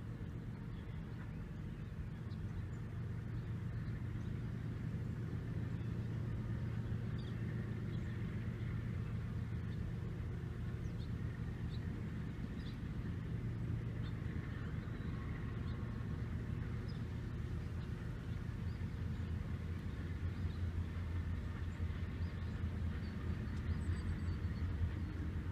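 Auto-rack freight cars of a unit train rolling past, a steady low rumble of steel wheels on rail. Faint short high squeaks are scattered through it.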